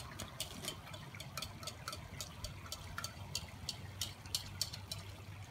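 Barbecue sauce thinned with Dr Pepper being poured from a bowl into a cast-iron Dutch oven over sliced onions: a quiet pour with a run of small, irregular wet splats and drips, several a second.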